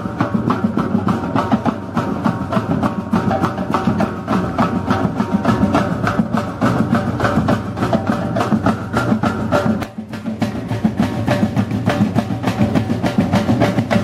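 A group of street drummers playing a fast, steady beat on snare, bass and other drums, with a short drop in the playing about ten seconds in.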